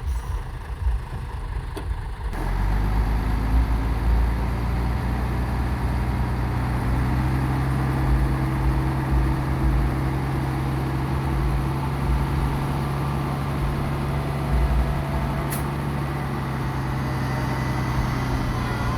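Heavy diesel engine of a dump truck running steadily under load, with a deep rumble. It gets louder about two seconds in, and one short sharp click comes later.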